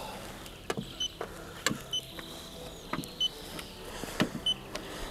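Paint thickness gauge beeping four times as readings are taken on the car's body panels, each short high beep coming a moment after a sharp tap.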